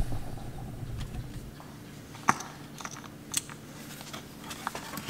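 Plastic hand pump on a quart bottle of lower-unit gear oil being worked, giving a few sharp, irregular clicks, the loudest about two seconds in. The pump is forcing gear oil up the tube into the outboard's lower unit through its bottom drain hole.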